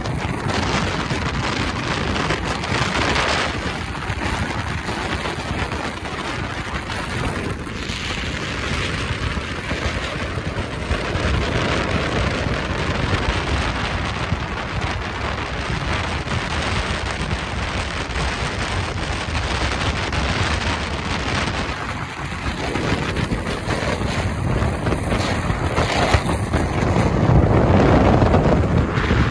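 Steady road and wind noise of a car travelling at highway speed, heard from inside the car: tyres rushing on a wet road and wind buffeting the microphone, swelling louder near the end.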